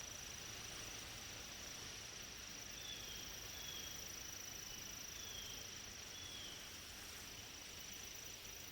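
Faint woodland ambience dominated by insects: a steady, high-pitched insect drone, with a few faint short falling chirps about three to six seconds in.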